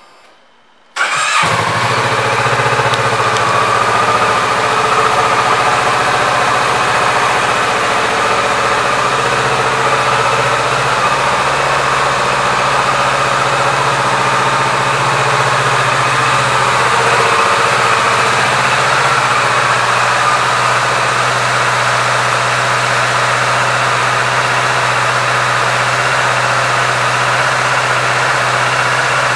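2018 Kawasaki Z650's 649 cc parallel-twin engine starting: it catches about a second in, then settles into a steady idle.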